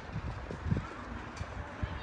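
Footsteps walking on pavement: soft, uneven low thuds about twice a second.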